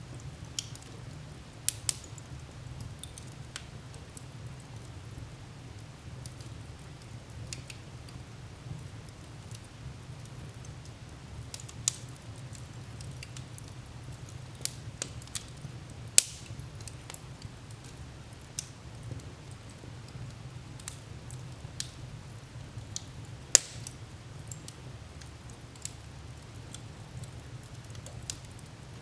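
Wood fire crackling: irregular sharp pops and snaps over a steady low background of the burning fire. The two loudest pops come about halfway through and about three quarters of the way through.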